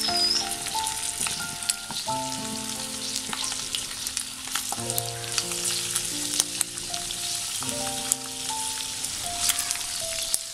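Boiled mutton pieces sizzling and crackling in hot ghee in a kadai as more pieces are laid in, with soft background music notes underneath.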